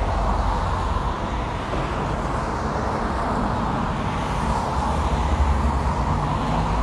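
Steady road traffic noise: a continuous low rumble under an even hiss.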